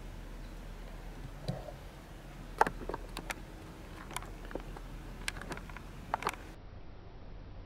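Dry, crunchy leaf litter crackling under a deer's hooves as it moves through the woods: about a dozen sharp, irregular crunches in the middle, the loudest about two and a half seconds in.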